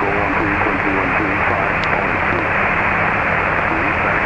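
Steady hiss on an aircraft radio/intercom audio feed, with a low hum under it and a faint, unreadable voice coming through at times.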